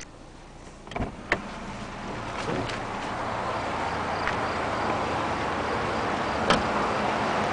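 Knocks and clicks from moving about inside a car, then a rising wash of outdoor noise as the person gets out. A sharp single thump about six and a half seconds in, the car door being shut.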